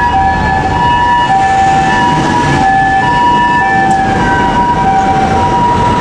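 Ambulance siren passing on the street, the Japanese two-tone "pee-poh" pattern of a high and a low tone alternating over and over, with street traffic underneath.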